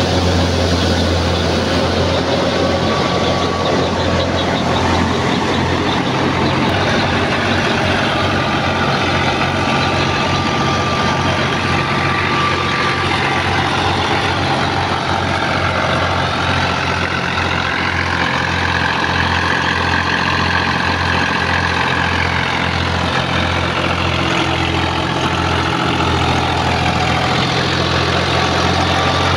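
Al-Ghazi 65 HP tractor's diesel engine running steadily with a low, evenly throbbing hum. A fainter higher whine wavers over it.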